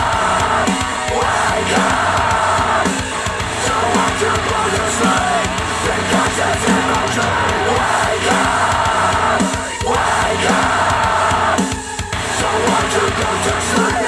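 Loud music with a steady beat and singing, played back through Dayton Audio B452 Air two-way bookshelf speakers driven by a Yamaha A-S301 integrated amplifier.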